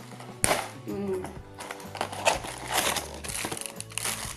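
Plastic packaging crinkling and rustling in many short sharp rustles as a toy is unwrapped from its box, over background music.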